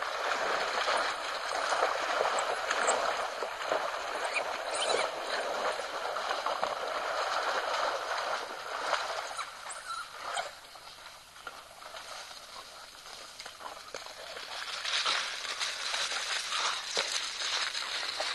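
Splashing and sloshing water as African wild dogs chase an impala through a shallow waterhole. The noise dips about ten seconds in and rises again near the end.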